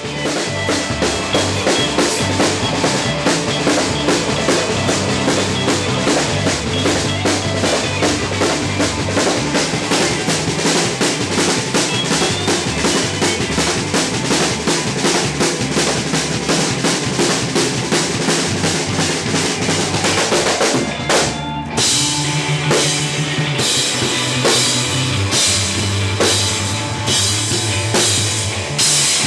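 A rock band playing, led by a full drum kit with cymbals and snare keeping a driving beat. About 21 seconds in the music breaks for a moment and comes back in a new section with heavier bass drum hits.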